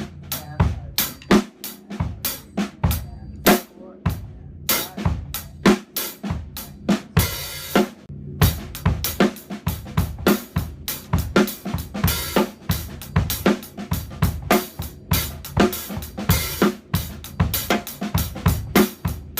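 Drum kit played slowly in a 7/4 accented pattern: right hand on the hi-hat, left hand on the snare with accents and ghost notes, and bass drum underneath. A longer cymbal wash rings out about seven seconds in.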